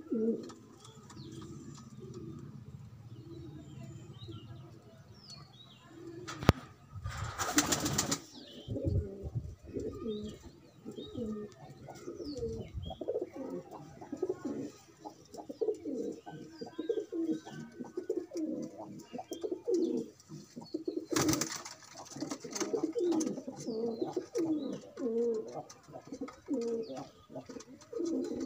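Domestic pigeons cooing over and over, several birds overlapping in low, rolling calls. Two brief, loud rustling noises cut across the calls, one about a quarter of the way in and one about three-quarters through.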